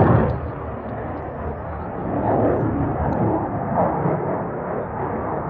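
Eurofighter Typhoon's twin EJ200 turbofan jet engines heard in flight display, loudest at the very start, then dropping off into an uneven rumble that carries on.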